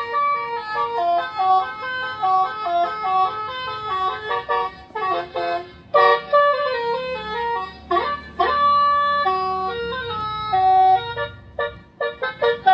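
Electronic telolet horn module playing a koplo-remix melody through a toa horn loudspeaker: a lively tune of stepped, held notes, with a few short sharp beats around the middle and near the end.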